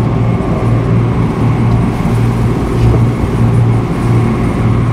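Motor launch's engine running hard under way, a steady low drone with a throb pulsing about twice a second, over the rush of the wake and rough water against the hull.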